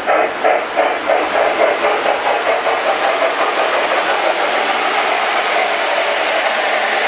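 Lionel Norfolk & Western J-class 4-8-4 model steam locomotive's electronic steam sound running: rhythmic chuffs that quicken as the train gathers speed, blurring into a steady hiss about five seconds in.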